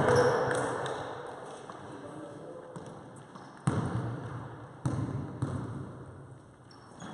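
A basketball bouncing on a wooden sports-hall floor, three sharp bounces in the second half, each echoing in the large hall.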